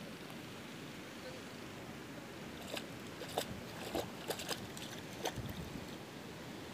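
A small child's sandalled footsteps splashing through shallow water, a run of sharp little splashes and taps in the middle, over a steady hiss.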